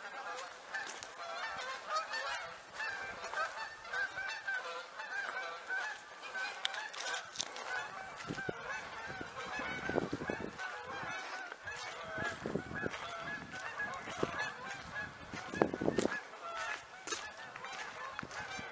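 A flock of geese honking continuously, many calls overlapping one another. A few low thuds stand out about ten, twelve and sixteen seconds in.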